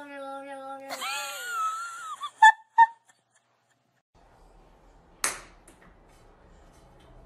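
Hairless cat yowling: one long, drawn-out meow falling slightly in pitch, then a second higher, wavering yowl. Two sharp pings about a third of a second apart follow, then faint room noise with a single sharp tick.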